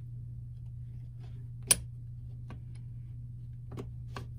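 Metal clicks from a Martini Cadet rifle's steel action as the lever and breech-block assembly is worked up into the receiver by hand: one sharp click a little under two seconds in, then a few fainter ticks near the end, over a steady low hum.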